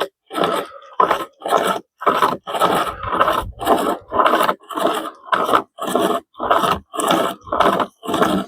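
Pocket chainsaw (a hand-pulled cutting chain) being sawn back and forth through a small-diameter piece of wood: a rhythmic rasping scrape, about two strokes a second.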